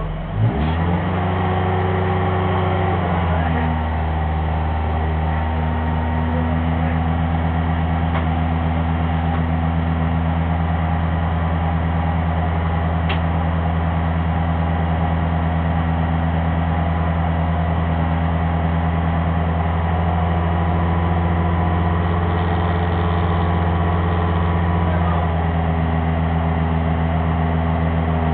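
Race car's engine, heard from inside the cabin, given a short blip of revs about half a second in and then idling steadily.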